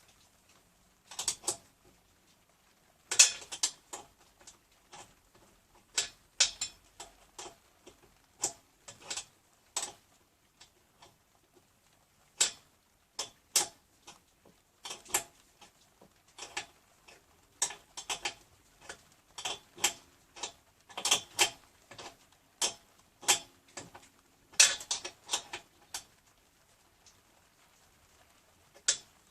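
Hand tools and small metal parts clicking and tapping irregularly while an air compressor is being assembled, with short quick clusters of clicks now and then and quiet gaps between.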